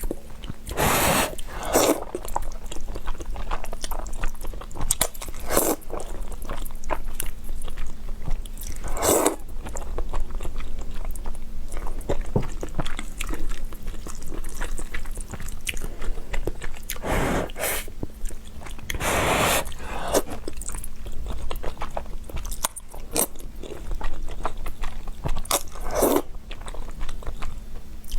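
Close-miked eating of spicy instant noodles: chewing and wet mouth sounds with many small clicks. A few louder, longer bursts come every few seconds.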